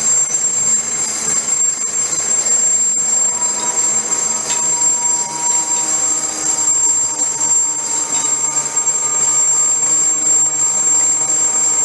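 Old belt-driven metal lathe turning a mild steel flange, the cutting tool on the metal giving a steady, high-pitched metallic squeal over the running of the machine.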